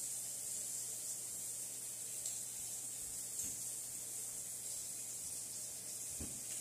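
Steady high hiss over a faint low hum, with a few faint ticks.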